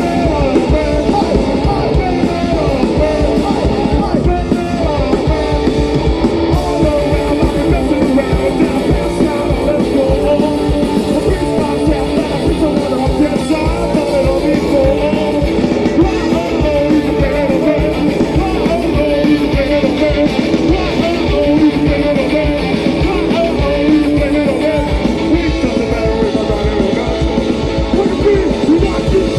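Live punk rock band playing loud, with electric guitar, drums and shouted singing.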